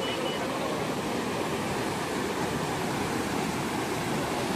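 Steady rush of the Teesta River in flood: fast, muddy current churning and breaking against the bank.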